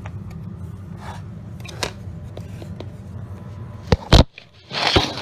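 Handling noise from vacuum cleaner parts being worked apart: light clicks and scrapes over a steady low hum, then two loud knocks about four seconds in and a rustling clatter near the end.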